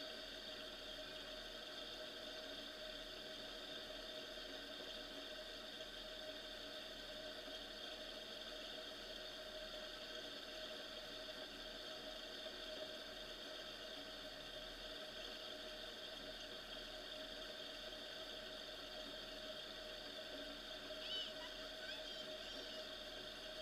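Jeep Wrangler engine idling, a faint, steady, unchanging drone. A brief faint squeak comes about 21 seconds in.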